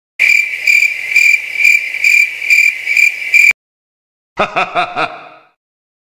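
Cricket chirping sound effect: a steady high trill pulsing about twice a second for roughly three seconds, then stopping abruptly. About a second later comes a short laugh of a few quick syllables.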